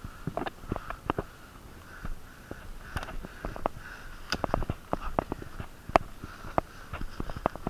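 Heavy, congested breathing through a plugged-up nose, a faint hissing that swells and fades about twice a second, with scattered sharp clicks and knocks throughout.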